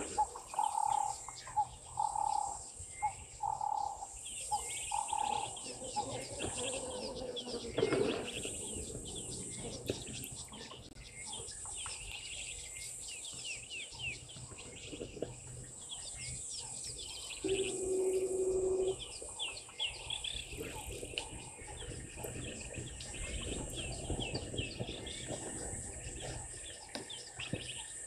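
Bushveld ambience of many small birds chirping, with a steady high insect drone underneath. A repeated whistled note sounds about once a second for the first five seconds, and a steady low tone lasts about a second and a half a little past the middle.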